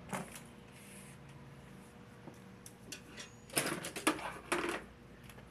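Cordless electric screwdriver driving a screw into wood, running in two short bursts about three and a half seconds in, with faint clicks of handling before them.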